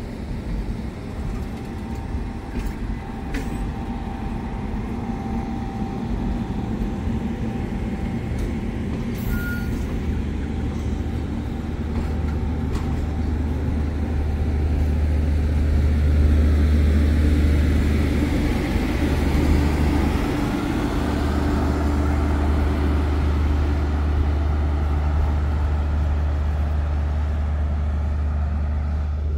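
The Ghan's passenger carriages rolling past on the rails as the train pulls out, a steady low rumble of wheels on track. The rumble grows louder about halfway through and stays up as the last cars go by.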